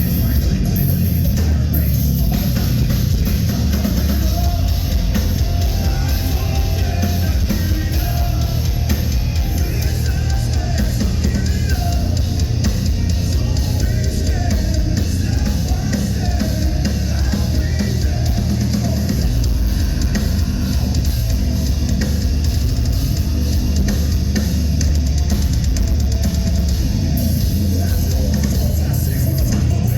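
Heavy metal band playing live and loud, the drum kit and bass drum driving under dense band sound.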